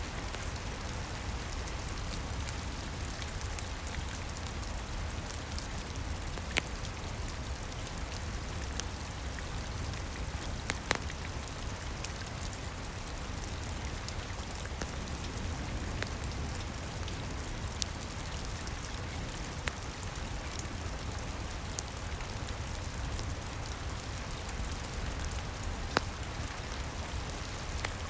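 Steady rain with a low rumble, with a few sharp pops from a crackling wood fire scattered through it.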